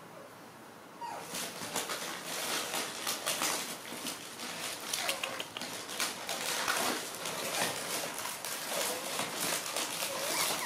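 Monkeys scuffling on a bed, with busy rustling and knocking and short squeaky calls, starting about a second in.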